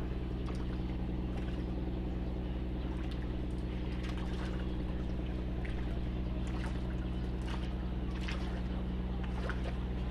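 An engine running steadily with an even low hum. Over it come several small splashes as fish snap up prawn shells at the water's surface.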